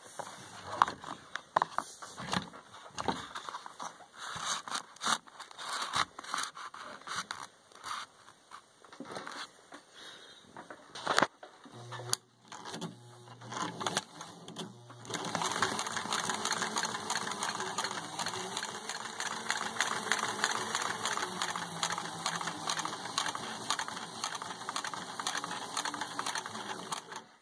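Irregular clicks and knocks for about the first twelve seconds. Then a motor hum starts, and from about fifteen seconds in the Consew sewing machine runs steadily, stitching leather at slow speed through its retrofitted Husqvarna Viking motor and reduction gear.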